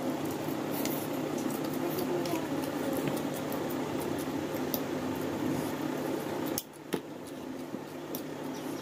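Eating at a table: forks clicking and scraping on plastic serving trays, with chewing, over a steady background hum that drops abruptly about six and a half seconds in.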